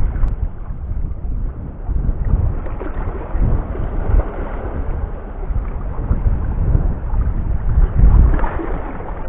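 Wind buffeting the camera's microphone: a loud, gusty low rumble that swells and drops irregularly.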